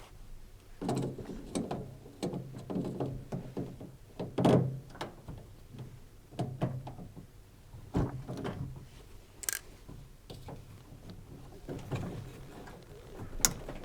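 Irregular knocks and clicks of hands and a tool working a metal hose clamp loose where the drain hose joins a washing machine's drain pump, with a few louder knocks and a couple of sharp metallic clicks.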